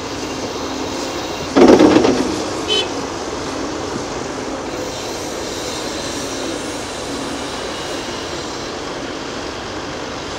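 Heavy diesel machinery running steadily, with a loud crash about one and a half seconds in as a bucketload of soil from a Caterpillar 330F excavator drops into a steel dump trailer, then a short metallic clank about a second later.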